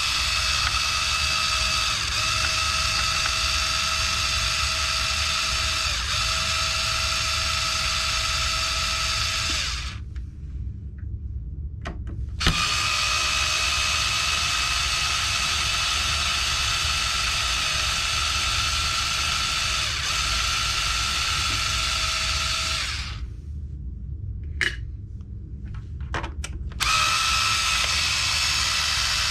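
A power driver with a 2.5 mm hex bit backing out the servo mount screws, its motor running with a steady whine. It runs in three long stretches, one per screw, with short pauses and a few small clicks between them; the third starts near the end.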